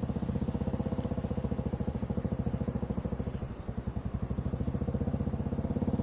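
A small engine running steadily at idle with an even, rapid putter, dipping briefly in level a little past halfway.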